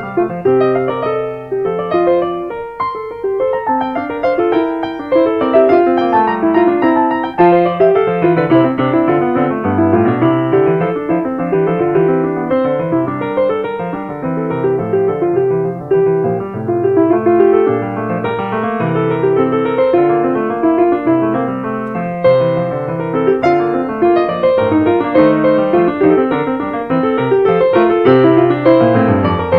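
Solo piano music: a continuous flow of notes with no pauses.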